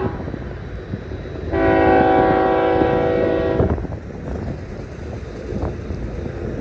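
BNSF freight train rolling slowly, with rumble and scattered clanks. About a second and a half in, a loud steady shriek made of several tones at once sounds for about two seconds and cuts off sharply.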